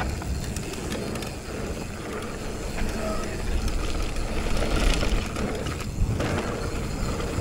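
Downhill mountain bike rolling on a trail, with a steady mechanical rattle and fast clicking over a low rumble.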